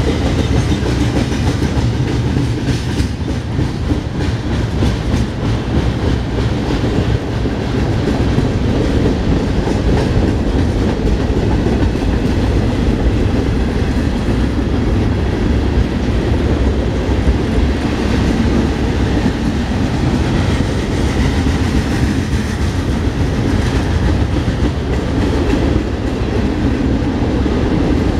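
Freight train of boxcars and covered hopper cars rolling past: a steady low rumble of steel wheels on rail, with repeated clicks as the wheels cross rail joints.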